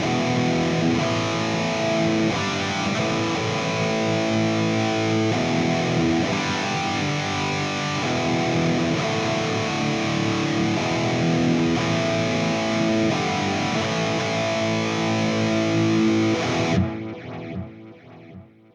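Electric guitar played through a Valeton GP-200 multi-effects processor on its artist preset 26-D, with chords ringing out. About 17 seconds in the playing stops and the last notes fade away.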